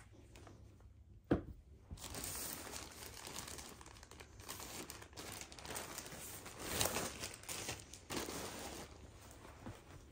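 Plastic mailer bag crinkling and rustling in uneven swells as clothing is pulled out of it, after a single sharp tap about a second in.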